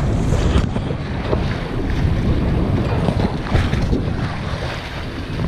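Wind buffeting the microphone and water rushing and splashing along the hull of a sailboat under way.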